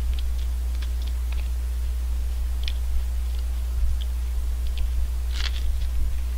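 Crunching and chewing of a crisp wafer ice cream cone with almond topping: scattered short crunches, one louder crunch about five seconds in, over a steady low hum.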